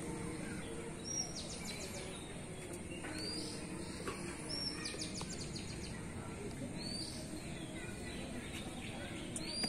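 Small birds chirping: short high-pitched calls repeated a handful of times, with a couple of quick trills, over steady outdoor background noise.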